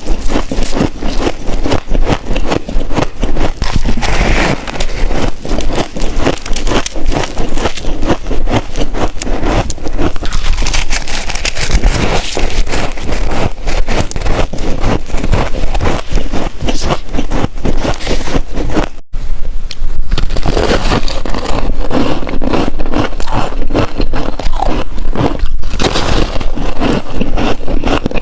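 Close-miked biting and chewing of soft freezer frost chunks: dense, continuous crackling crunches, broken by a brief moment of silence about 19 seconds in before the crunching starts again.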